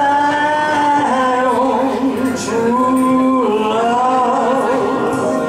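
A woman singing a slow ballad solo, holding long notes, some with a wide vibrato.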